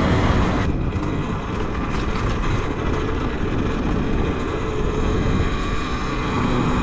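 Riding noise from a Talaria Sting R electric dirt bike: steady wind on the microphone over the hum of the knobby rear tire rolling on the ground, with a faint steady whine running underneath.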